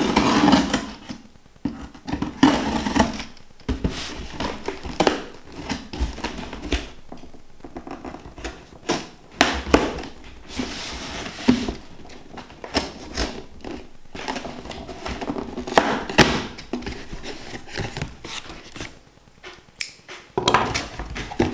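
A cardboard shipping box being opened and rummaged by hand: cardboard flaps and packing material rustling and crinkling, with scrapes and scattered light knocks.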